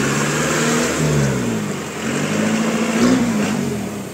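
Engine of an off-road 4x4 jeep revving up and down as it works through mud. The pitch rises to a peak about a second in, dips, climbs again to a higher peak about three seconds in, then falls away.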